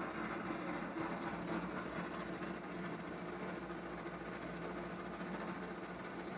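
Electric motor drive of a voice-controlled pull-out kitchen trash drawer running steadily with a low hum as it slides the drawer open.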